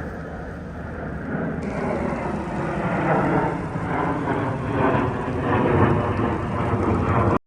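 Low, rough rumble of a passing heavy vehicle with wind noise on the microphone, growing louder over the last few seconds and cut off abruptly near the end.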